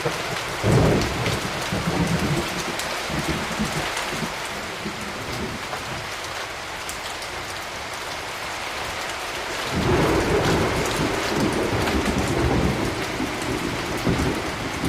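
Steady rain falling, with two rolls of thunder: one breaking sharply just under a second in and rumbling for about three seconds, and a longer one starting around ten seconds in and rumbling away over about five seconds.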